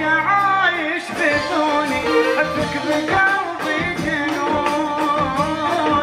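An Arabic song: a singer's wavering, ornamented vocal line over a steady percussion beat.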